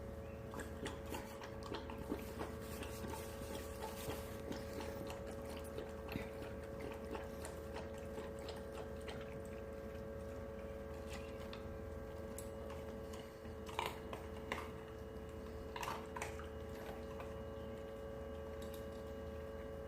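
Dog eating its food: faint, irregular chewing and crunching, busiest in the first half, with a couple of louder crunches later. A steady hum runs underneath.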